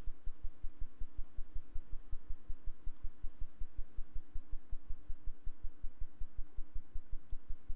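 Low, rapid throbbing hum, pulsing about six times a second, with faint steady tones above it.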